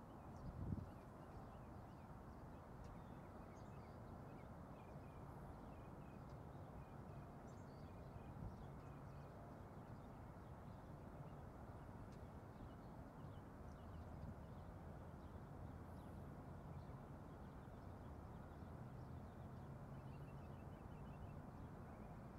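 Near silence: faint outdoor ambience with a steady distant low rumble and scattered faint bird chirps. There is a brief thump under a second in.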